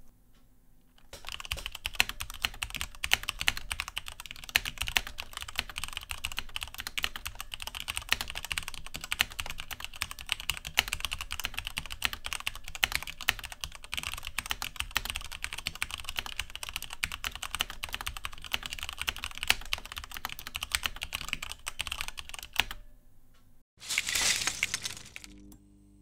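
Typing on a Mountain Everest Max keyboard with Cherry MX RGB Red linear switches: a fast, steady clatter of keystrokes that starts about a second in and stops about three seconds before the end. A brief burst of rushing noise follows near the end.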